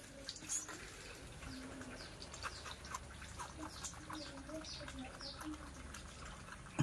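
Faint, short high chirps that fall in pitch, repeated many times at uneven spacing, over a few soft low calls.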